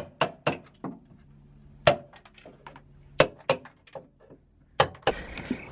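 Hammer strikes knocking old sound deadening off a Mk3 Supra's steel floor: sharp, irregular clinks and cracks, some in quick runs of three or four.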